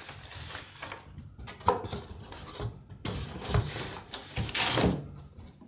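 Hands handling a cardboard laptop box, opening it and reaching inside: rustling and scraping of cardboard with a few knocks.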